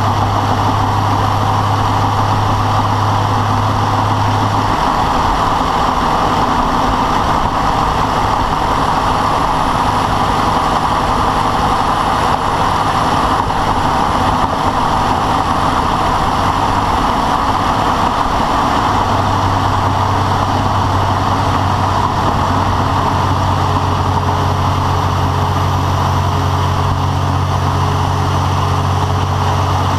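Vehicle engine running steadily with a rapid rattling noise that has been there since a rebuild, cause unknown. A deep steady hum drops out about five seconds in and comes back near twenty seconds.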